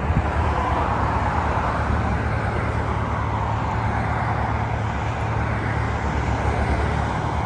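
Steady car engine and road noise, a constant low rumble with a broad hiss over it, as of a car driving at an even speed.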